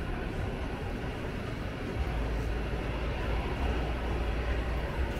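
Landing airliner's engine noise, a steady rumble that grows louder about two seconds in as the aircraft comes closer.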